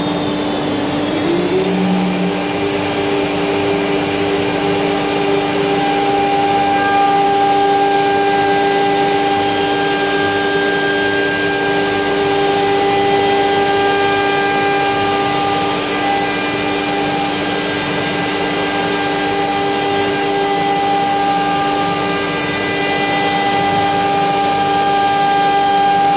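COMAGRAV NOTUS 1600 CNC router routing 10 mm plywood: the spindle winds up in the first second, then runs with a steady whine over the cutting noise. The constant rush of the vacuum table pump and dust collector runs with it.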